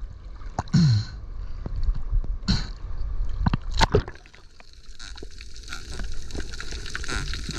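Underwater handling noise as a diver grips a spiny lobster: scattered sharp clicks and knocks over a low rush of water and gurgling, with a short falling groan about a second in.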